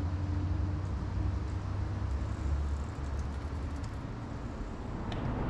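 City street ambience: a steady low rumble of traffic under faint street noise, with a few light ticks.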